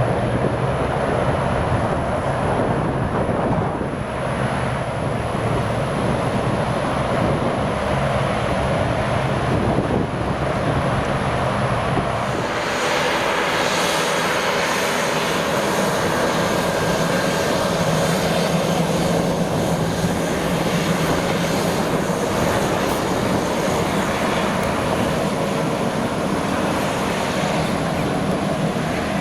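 Aircraft engines running, a steady noise with a low hum; about twelve seconds in the sound changes, the hum dropping away and more hiss coming in above.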